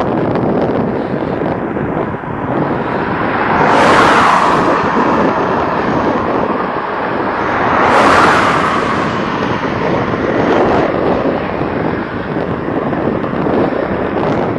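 Loud wind noise buffeting a compact camera's built-in microphone, swelling twice, about four and eight seconds in.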